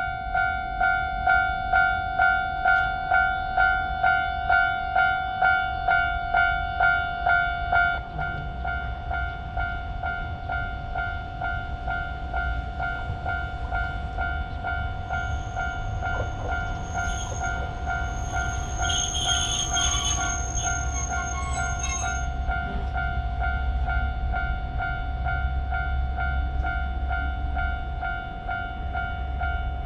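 Japanese level-crossing warning bell ringing its 'kan-kan' alarm about twice a second, while a train passes with a low rumble that builds from about eight seconds in. A high steady tone sounds for several seconds in the middle.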